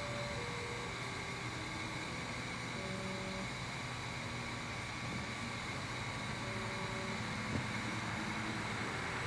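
Stepper motors of a laser engraver turning the pen on its rotary axis and moving the laser. They give short whining tones that jump from pitch to pitch every half second or so, over a steady fan hiss.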